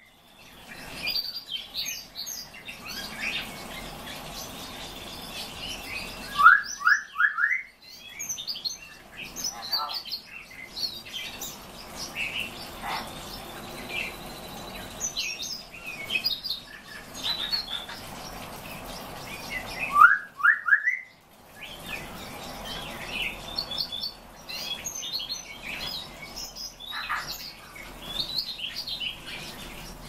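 Several caged songbirds chirping and twittering together. A louder phrase of three or four quick rising whistles rings out twice, about six seconds in and again about twenty seconds in.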